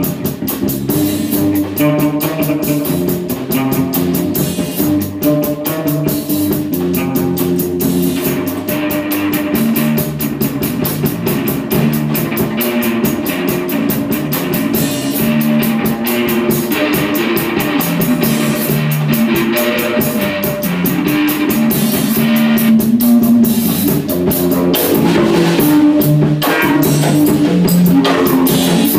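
A band jamming live on electric bass and drum kit: a rock bass line over a steady beat with cymbals, growing a little louder near the end.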